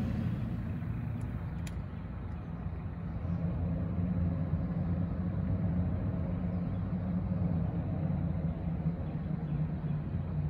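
Steady low hum of the jon boat's motor running, with one faint click a little under two seconds in.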